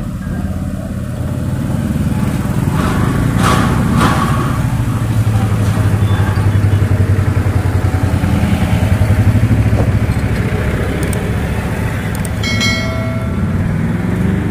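Road traffic passing close by: the engines of small goods trucks and motorcycles, swelling to their loudest in the middle as a pickup truck drives past.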